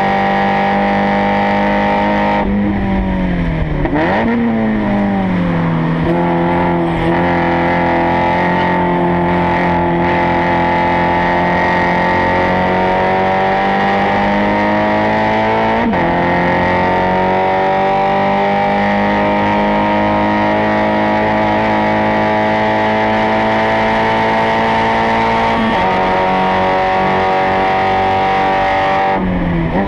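Spec Miata four-cylinder race engine running hard, recorded at the car's rear bumper. The revs fall sharply with a quick blip a few seconds in as the car brakes and downshifts, then climb and hold high. There is a brief dip about halfway through and another drop in revs near the end.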